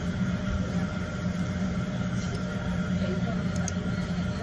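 A steady low mechanical hum, with a few faint light clicks about three and a half seconds in.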